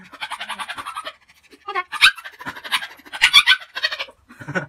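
Puppy panting in quick, rough bursts as it scrambles up the bars of its wire crate, with a short quiet gap in between.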